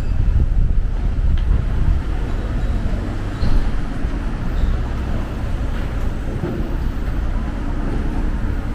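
Strong wind buffeting the microphone, a heavy fluttering rumble over the general noise of a city street.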